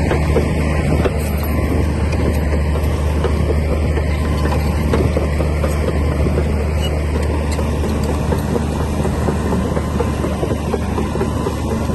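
Komatsu D60P bulldozer's diesel engine running steadily with a deep, even hum.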